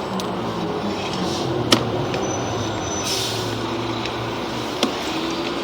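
An engine running steadily at idle, a low even hum, with a sharp click about two seconds in and another near the end.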